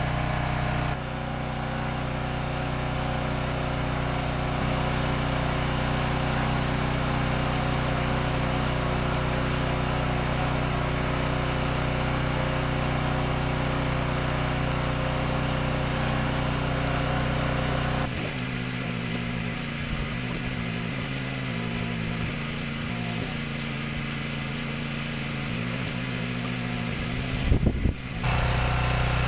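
Engine running at a steady speed during log splitting. In the last third its pitch wavers up and down as if under varying load, with a brief louder burst near the end.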